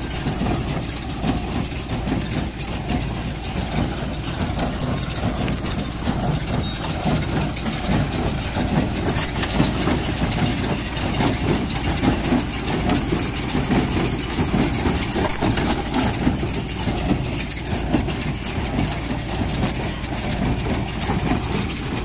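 Tractor-drawn Maschio Pitagora small square baler at work, running steadily with a dense mechanical clatter over the drone of the tractor's engine.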